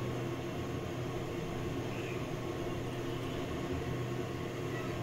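A steady low mechanical hum with an even hiss, unchanging throughout.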